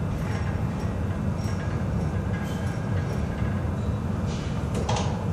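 Steady low mechanical rumble, with a short sharp clank about five seconds in.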